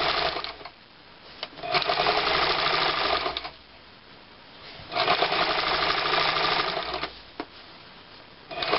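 Electric sewing machine stitching piping onto cotton fabric, running in runs of about two seconds that stop and start again several times, with a single click in two of the pauses.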